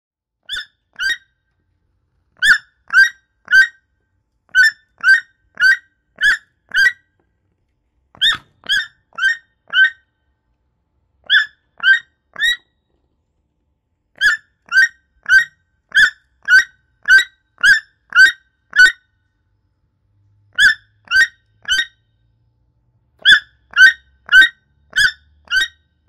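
Toucan calling: short, hoarse notes repeated about twice a second in runs of two to nine, with brief silent pauses between the runs. The first pair is quieter than the rest.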